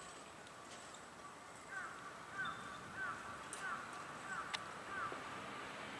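A bird calling in the background: a run of six short notes, each sliding downward, evenly spaced at roughly two-thirds of a second apart. A single sharp click falls near the end of the run.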